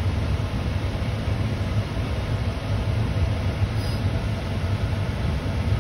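A parked vehicle's engine idling, heard from inside the cabin as a steady low rumble.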